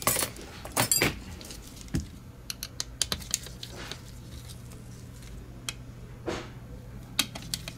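Irregular small plastic clicks and taps as the top shell of a Logitech G Pro X Superlight mouse is handled and worked apart to reach the switch module, with a short scrape about six seconds in.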